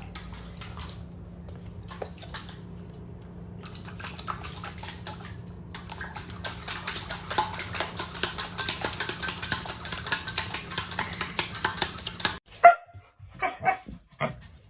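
A dog, heard over a steady low hum and a dense run of rapid clicks and scratches; after an abrupt cut near the end comes a few short, separate barks.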